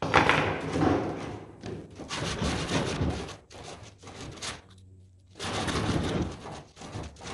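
A short piece of PVC pipe sanded by hand against sandpaper: rough scraping strokes in several runs with short pauses, smoothing the burrs left by a hacksaw cut.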